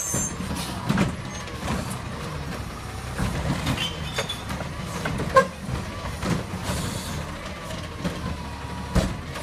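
Autocar garbage truck's engine running steadily while its Curotto-Can arm lifts a blue recycling cart, tips it and sets it back down. Knocks and clatter come from the cart and the falling recyclables, the sharpest about five seconds in.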